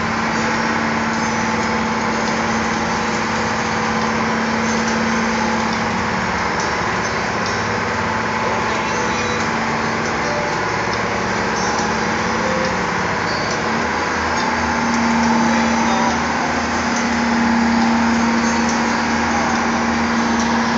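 Boat engine running steadily under a constant rush of wind and water in rough seas. The engine pitch rises a little and grows louder about two-thirds of the way through.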